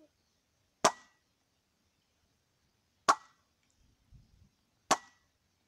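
Three sharp knocks of a rubber mallet striking the top of a water-filled glass beer bottle, about two seconds apart, each with a brief ring. The blows send a pressure pulse through the water meant to knock the bottom out; no breaking is heard.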